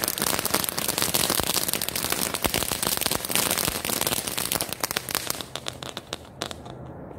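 Firework-type incendiary charge burning, spraying sparks with a dense, rapid crackle and hiss. It dies down about six seconds in.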